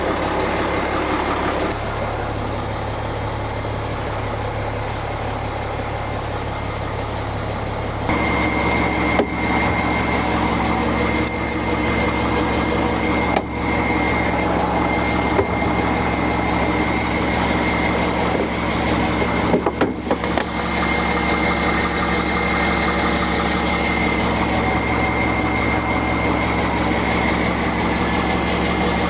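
Heavy tow truck's engine idling steadily. About eight seconds in the tone shifts and a steady high whine joins it.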